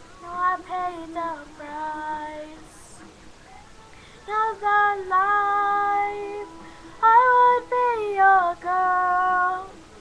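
A young female voice singing unaccompanied, in three long phrases of held notes that bend and slide, with short pauses between them.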